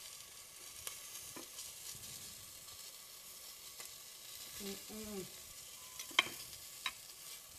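Fork and knife clicking against a ceramic plate while a piece of broccoli is cut and eaten, with a short hummed "mmm" of tasting about five seconds in and two sharper clinks near the end. A steady faint hiss lies under it all.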